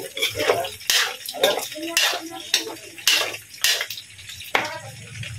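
Metal spatula scraping and clanking against a steel wok as pork pieces are stirred while they brown in oil, about two strokes a second.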